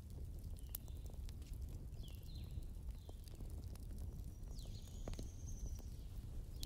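Soft, scattered taps and clicks from a pen and paper being handled on a desk, over a low steady rumble, with a few faint high squeaks that drop in pitch.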